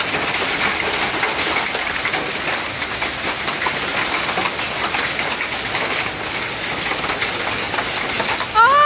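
Hail falling steadily: a dense patter of small hailstones striking the ground and yard, with many fine ticks through it.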